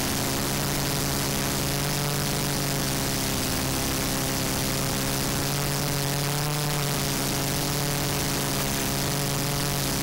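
Small FPV quadcopter's motors and carbon fibre propellers whirring steadily, the pitch drifting slightly up and down with throttle changes, over a constant hiss.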